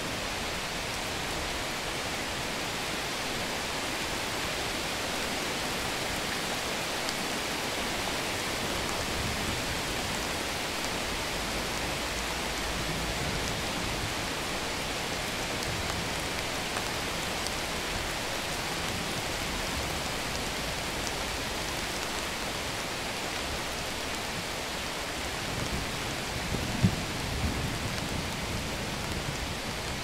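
Steady rain falling, an even hiss. Near the end a low rumble swells, with one brief louder hit.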